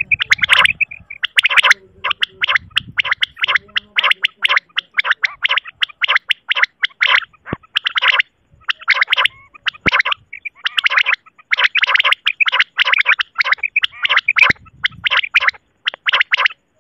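Common quail calling, short sharp notes repeated rapidly in clusters with brief pauses between them.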